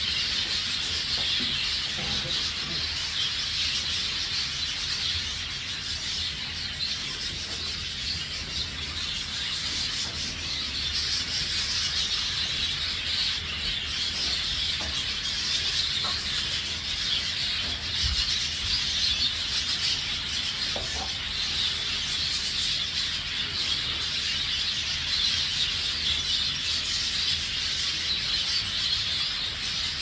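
A roomful of budgerigars chattering and warbling without a break, a dense, steady twittering.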